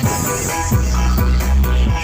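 Dance music played loud through a large sound-system rig for a bass check. About a third of a second in, a very deep, heavy bass line with a pounding beat comes in.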